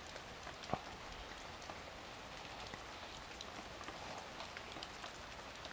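Faint, even patter of light rain with scattered drops, and a soft tap under a second in.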